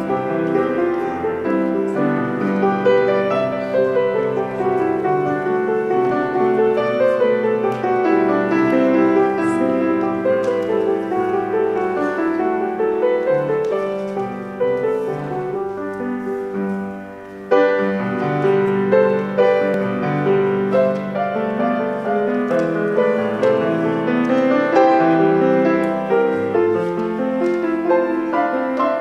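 Grand piano playing a flowing instrumental piece, with a short break about two-thirds of the way through before the next phrase begins.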